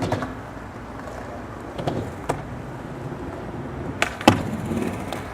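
Skateboard rolling with a steady rumble, broken by several sharp clacks and knocks of the board, the loudest about four seconds in.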